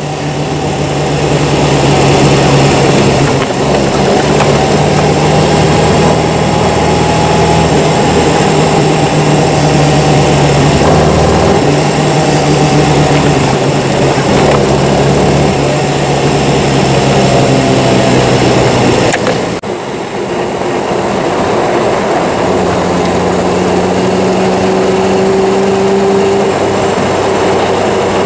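1938 Austin 10 Cambridge's four-cylinder side-valve engine running under way, with road noise. The engine sound drops briefly about two-thirds through, then carries on at a different pitch.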